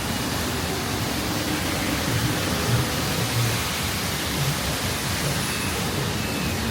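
Steady hiss of heavy rain falling in a city street, with a low irregular rumble underneath.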